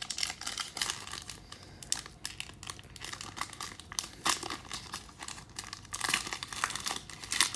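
Plastic packaging crinkling and rustling as it is handled, in irregular crackly bursts with small clicks, busiest near the end.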